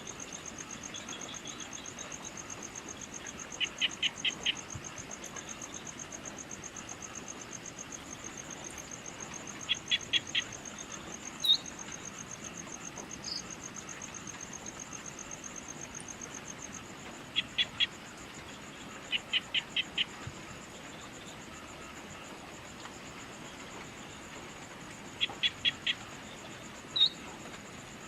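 Evening insects trilling steadily in a fast, high pulsing chorus, with a call of four quick notes repeated every few seconds and a few single chirps between. Around the middle the trill changes to a smoother tone.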